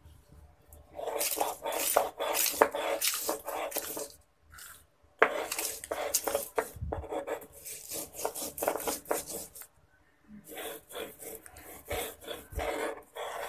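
Dried red chillies being ground on a shil-nora, a flat grinding stone with a cylindrical roller: rapid back-and-forth rolling and scraping strokes of the roller over the stone. They come in three runs, broken by two short pauses, one about four seconds in and one near ten seconds.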